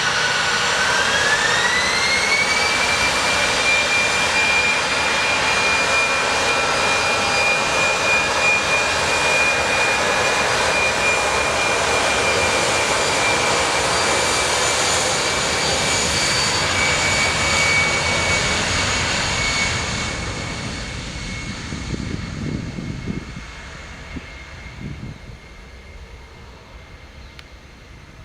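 Jet airliner's engines spooling up, their whine rising in pitch over the first few seconds and then holding steady at high power, typical of a takeoff run. The sound fades away over the last several seconds.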